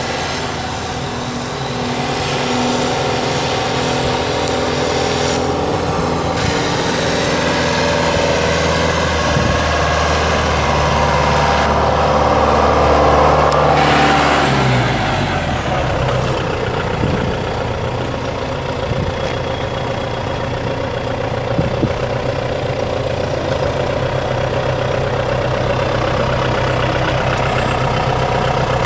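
2001 John Deere 6410 tractor's John Deere 4045T four-cylinder diesel engine running at raised speed. About halfway through it is throttled back, its pitch falling to a steady idle.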